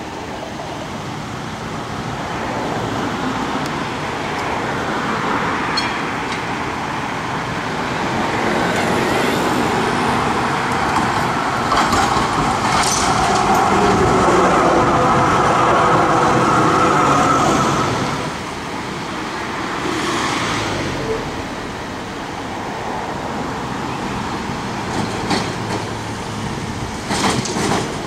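Trams running through street traffic. A modern articulated tram passes close by, loudest about halfway through with a steady whine, then fades away. A few sharp clicks come near the end as another tram approaches.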